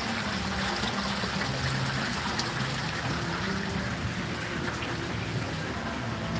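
Decorative fountain splashing and trickling steadily into its pool.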